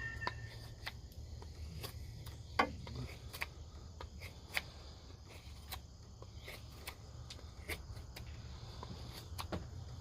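Rough Rider Half Hawk knife blade cutting chunks off a wooden stick: a series of short, sharp clicks and snaps at an uneven pace, the loudest about two and a half seconds in.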